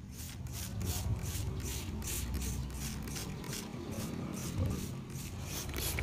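Plastic trigger spray bottle misting water onto potted plants: short hissing sprays in quick succession, several a second, as the trigger is squeezed again and again.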